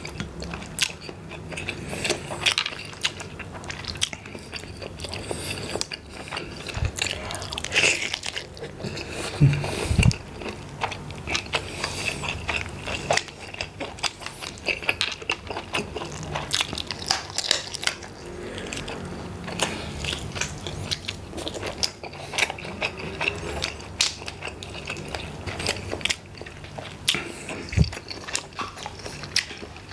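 Close-up eating sounds: chewing and mouth noises with many irregular clicks and crackles as sauce-coated, shell-on tiger prawns are peeled and eaten.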